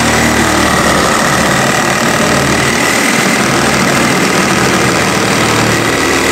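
DeWalt cordless reciprocating saw running steadily at full speed, cutting through a floor board under a stud wall. The cut tests how much load the wall puts on the board; a board under heavy load pinches the blade.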